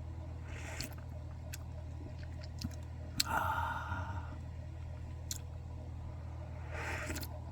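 Small mouth and breath sounds of tea tasting: a breath near the start and near the end, and a sharp click about three seconds in followed by a second-long slurping sip of tea. Scattered small clicks sit over a steady low hum.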